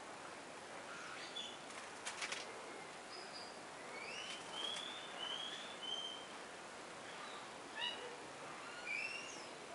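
Small birds calling: a scatter of short chirps and slurred whistled notes, some rising and some falling, over a steady outdoor hiss. A couple of sharp clicks come about two seconds in.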